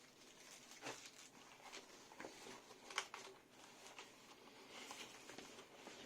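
Faint rustling and small clicks and knocks of packaging being handled as a boxed keyboard is unpacked, with one sharper tap about three seconds in.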